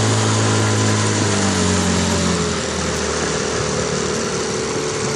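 HDX T9.8 BMS 9.8 hp two-stroke outboard motor running at planing speed on an inflatable boat, heard from on board over wind and water hiss. Its note sags a little in pitch about two seconds in, then holds steady.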